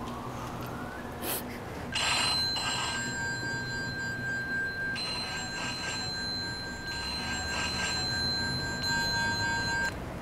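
Flip mobile phone ringing with an electronic ringtone, an incoming call. The ring starts about two seconds in and cuts off suddenly just before the end.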